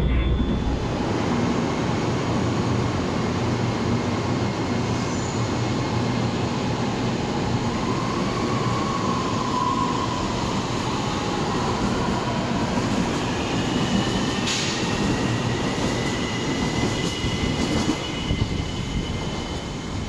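CSR Zhuzhou AMY light-rail train running on the Ampang Line with a steady rumble. Thin, shifting wheel squeal comes in over the second half, with one sharp click about two-thirds of the way through.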